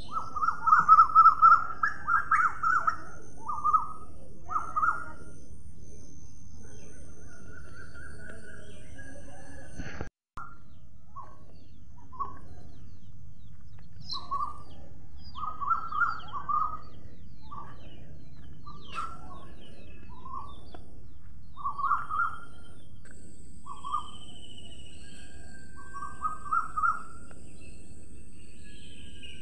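Short bird calls, coming in quick runs for the first few seconds and then scattered singly and in small groups. The sound drops out briefly about ten seconds in.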